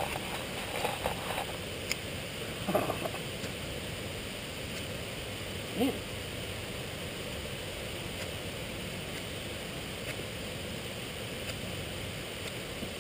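Steady rush of running water from a nearby stream and waterfall, with a few short scrapes of a ferrocerium fire steel being struck over tinder in the first three seconds. A brief louder sound about six seconds in.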